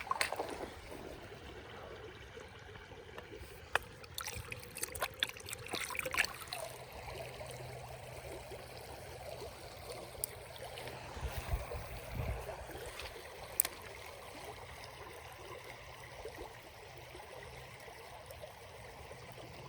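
Creek water running and trickling steadily, with a cluster of light clicks and knocks between about four and six seconds in and a short low thump about twelve seconds in.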